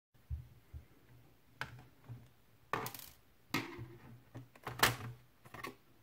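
Plastic bottom access cover of a Packard Bell laptop being pried up and lifted off: a series of separate clicks and knocks as its clips let go and the plastic taps against the case.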